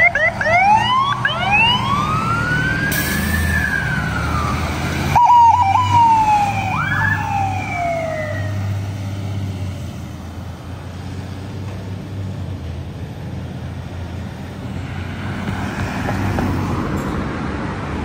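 Fire truck sirens rising and falling in long wailing sweeps over the low rumble of the trucks' engines as the apparatus pull away on a call. The sirens fall silent about eight seconds in, and the engine rumble grows fainter.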